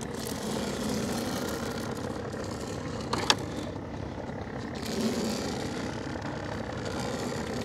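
Small fishing boat's engine idling steadily, with a single sharp click about three seconds in.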